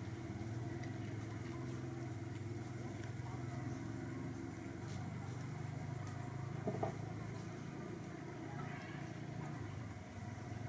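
A steady low engine hum, like a motor idling nearby, with one short sharp sound about two-thirds of the way in.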